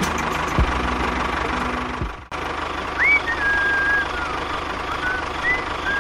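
A steady engine rumble, broken by a short dropout about two seconds in. Thin whistling tones sound over it in the second half.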